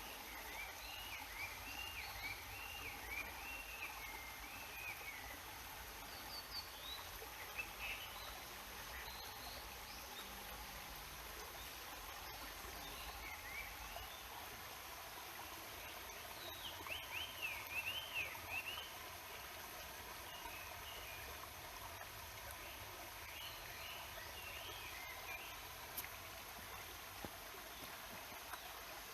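Stream water rushing steadily, with a songbird singing short, quickly warbling phrases several times over it, loudest a little past the middle.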